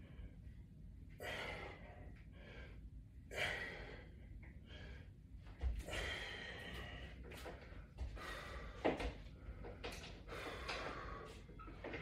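A man's heavy breathing from the effort of pulling stiff resistance bands, with forceful exhales every second or so and a couple of soft thumps.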